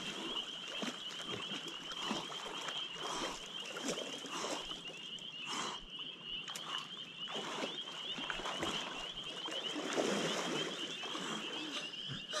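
Water splashing as two swimmers push out through a lake, with a steady high trill running behind it throughout.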